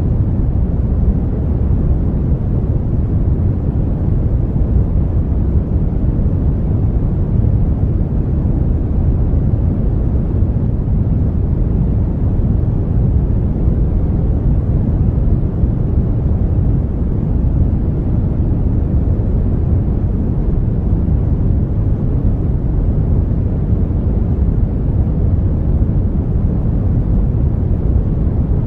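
Brown noise: a steady, deep rumbling hiss with most of its weight in the low end, unchanging throughout.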